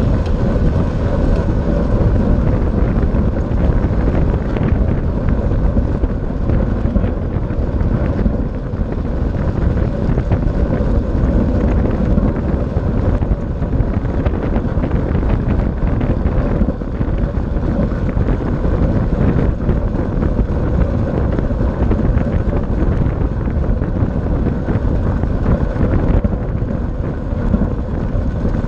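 Steady wind rush on the microphone of a camera on a track bike at racing speed, over the hum of the tyres on the wooden velodrome track.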